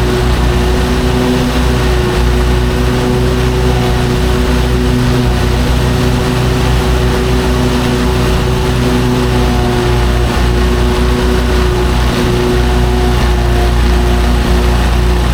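Lawn mower engine running steadily under load while cutting grass, an even drone with no change in pitch.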